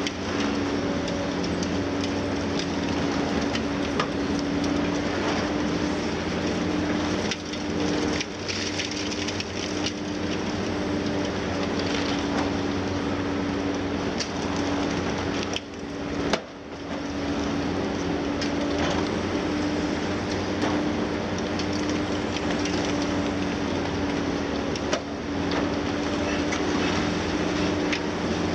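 High-reach demolition excavator (Liebherr 954 with its six-cylinder diesel) running under load with a steady droning tone, while its attachment breaks up concrete at the top of a wall. Crunching, cracking and falling rubble clatter on and off throughout.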